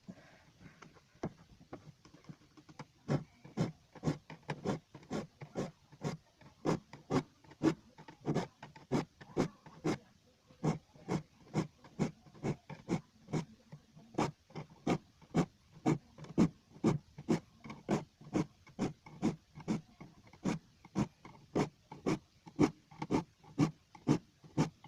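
Hand file rasping across the teeth of a hand saw in short, even strokes, about two a second, sharpening the dull saw.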